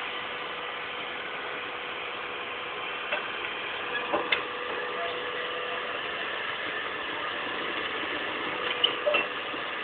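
Excavator engine running steadily, with a few sharp metallic knocks: one about three seconds in, a louder one a little after four seconds, and a short cluster near the end.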